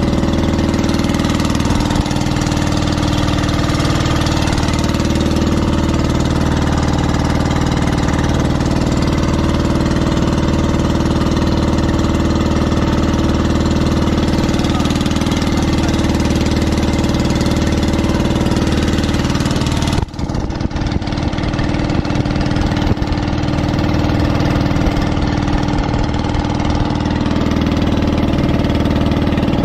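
Outrigger bangka boat's inboard engine running steadily underway, heard from on board, with a brief drop about twenty seconds in.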